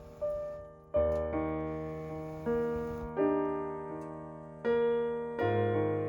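Background music: slow piano chords, a new chord struck about every second and left to ring and fade.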